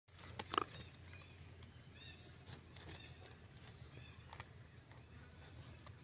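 Faint outdoor ambience: scattered clicks and light rustling, the sharpest about half a second in, with a few short, faint high chirps over a low steady rumble.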